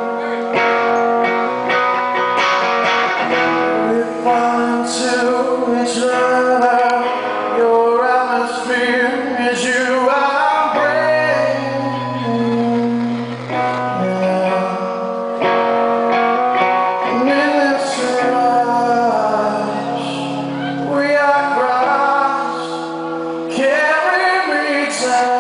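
Live song performance: a man singing over guitar and band accompaniment.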